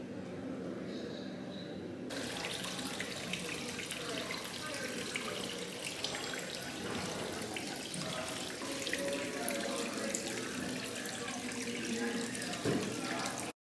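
Water running and splashing steadily in a turtle tank, a dense trickle full of fine drips and plinks, starting suddenly about two seconds in and cutting off just before the end.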